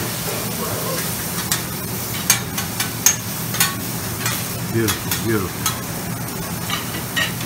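Meat, shrimp and vegetables sizzling on a steel flat-top griddle while two metal spatulas scrape and clack against the plate, turning and chopping the food: a steady sizzle with frequent sharp ticks of metal on metal.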